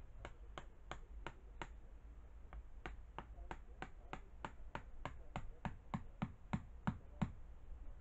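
Hammer blows driving in a tree stake, at about three a second: five blows, a short pause, then a longer run of about fifteen, the last few louder and deeper.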